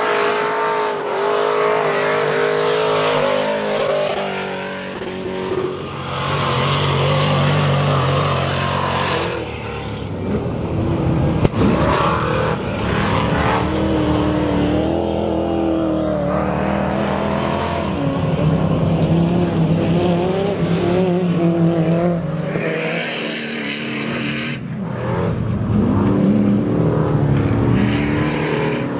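Off-road race trucks' engines revving hard as they race past on a dirt track, the pitch rising and falling through gear changes and corners, with several engines overlapping. There is one sharp knock about eleven seconds in.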